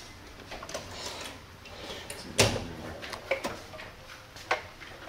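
Drawers of a steel Craftsman tool chest being slid open and shut, with a sharp knock about two and a half seconds in and a few lighter clicks and clatters as tools are searched through.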